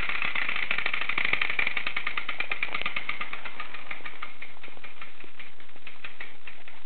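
Clockwork spring motor and gears of a KOVAP tin toy Zetor 25 tractor running down: a fast mechanical whirring ticking that slows, its ticks growing sparser and fainter through the second half as the spring unwinds.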